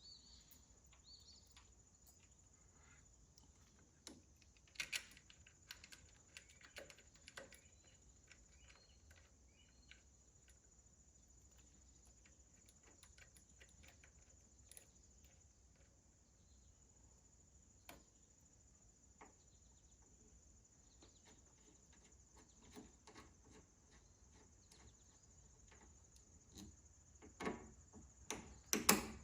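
Faint, scattered clicks and knocks of hand tools and parts being handled while fitting the tractor starter's cable, with a few louder knocks near the end.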